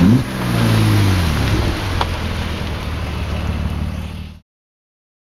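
BMW E46 330i's inline-six running through a Supersprint sport exhaust with both resonators deleted, rising sharply in pitch at the start, then falling in pitch as the car drives past close by. The sound cuts off abruptly about four seconds in.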